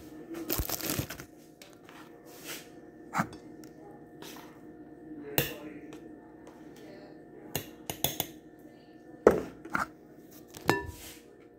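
Kitchen containers and utensils being handled and set down: scattered sharp knocks and clicks a second or two apart, with a brief rustle near the start and the loudest knock about nine seconds in.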